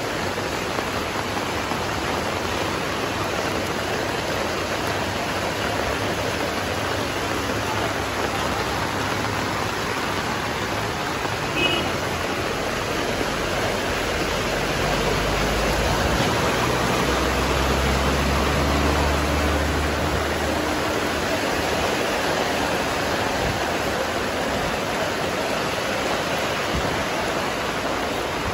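Heavy tropical rain falling steadily on a wet street: an even, continuous hiss. About halfway through, a vehicle engine's low hum swells under the rain and fades again a few seconds later. Shortly before that comes one brief sharp sound.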